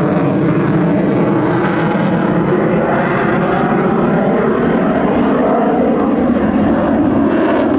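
F-22 Raptor's twin Pratt & Whitney F119 turbofan engines in a flyby: a loud, steady jet roar with faint tones drifting slowly in pitch.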